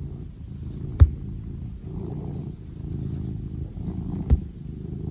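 A domestic cat purring close to the microphone: a low rumble that swells and eases in slow cycles with its breathing. Two sharp clicks come through, one about a second in and a louder one near the end.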